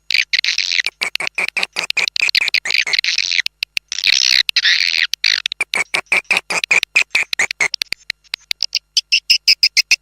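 Swiftlet lure recording of edible-nest swiftlet calls: rapid dry clicking with buzzy, twittering chirps over it, the external call sound played outside a swiftlet house to draw birds in. The chirping thins out briefly near the end while the clicks go on.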